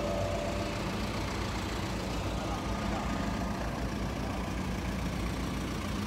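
Diesel engines of farm tractors running as they drive past, a steady low engine noise.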